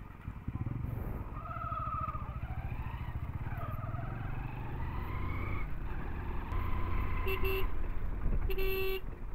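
Hero Splendor 100 cc motorcycle's single-cylinder four-stroke engine running at low speed as the bike pulls away and rides slowly. There are two short horn toots near the end.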